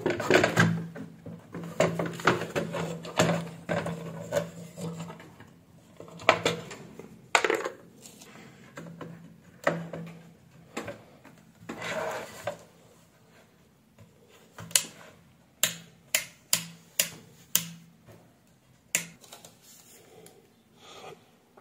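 Hands moving the plastic housing and parts of an opened electronic weighing scale: irregular knocks, rubs and rattles. A run of separate sharp clicks comes about two-thirds of the way in.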